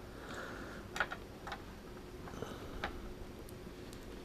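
Faint handling sounds of an RG59U coax cable being worked by hand as its cut outer plastic jacket is pulled off the end: soft rustling with a few small clicks.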